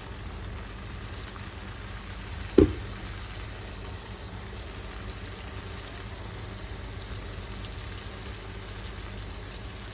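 Okra masala sizzling steadily in a pan, with one short knock about two and a half seconds in.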